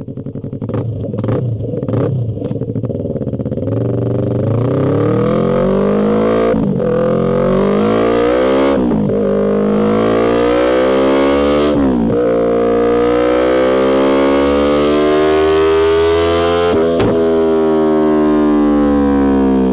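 Yamaha YZF-R3's parallel-twin engine, blipped unevenly near idle for a few seconds, then pulling away under acceleration. Its pitch climbs and drops sharply at each of about four upshifts.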